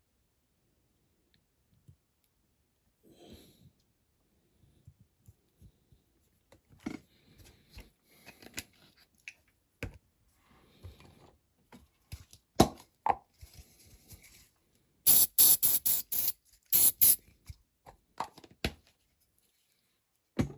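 Scissors cutting a small piece to size at a workbench: scattered small clicks and handling scrapes, then a quick run of about seven loud snips near the end.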